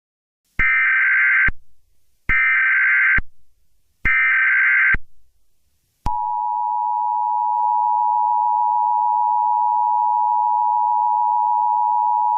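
Emergency Alert System header: three short bursts of buzzy digital data tone, about a second each, followed about six seconds in by the steady two-tone EAS attention signal, which announces an alert message.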